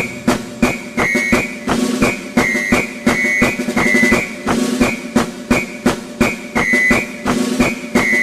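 Background music with a steady, quick percussive beat and a short repeated high melodic figure.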